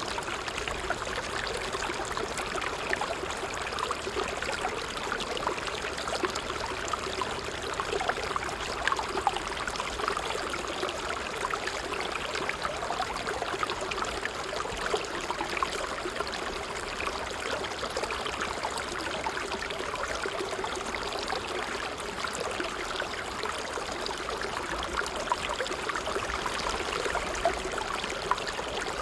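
Water trickling steadily, a constant light babble full of small splashes and drips.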